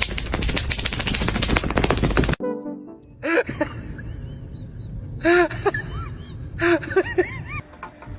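A rapid, dense clattering noise for about two seconds, then after a cut a dog making short whining calls that rise and fall in pitch, in several bursts.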